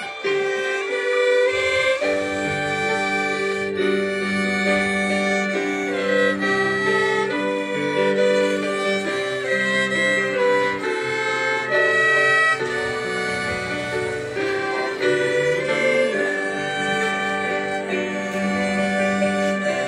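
Three violins playing a tune together outdoors, bowing long held notes.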